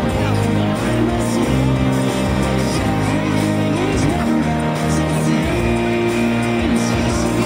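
Loud recorded pop music with guitar and singing, playing over a PA loudspeaker.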